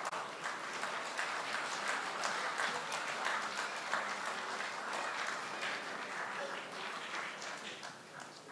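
Audience applauding: a dense patter of many hands clapping that builds up at the start and dies away near the end.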